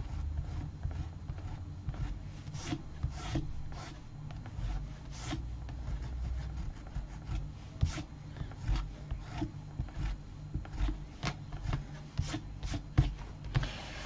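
Short, irregular rubbing strokes of a rubber eraser over cardstock, lifting oozed glue from the edge of a paper pocket.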